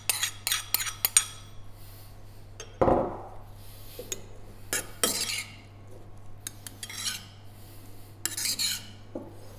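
Metal spoon clinking and scraping in a small bowl as diced avocado is stirred into scallop ceviche, with quick clicks at first and short scrapes later. About three seconds in there is one dull knock as a bowl is set down on the wooden tabletop.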